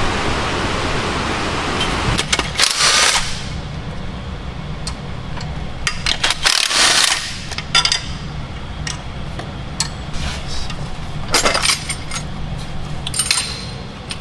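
Metal clanks and clatter from hand tools and engine parts being handled during engine and turbo removal. It comes in several short bunches a few seconds apart over a low steady hum, with rain noise in the first two seconds.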